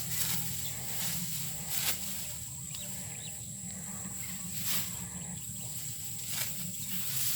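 Hand sickle cutting through bunches of dry, ripe rice stalks: several short, crisp rasping cuts spaced a second or more apart, with the stalks rustling between them.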